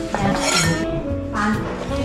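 Background music, with light clinks of kitchenware over it.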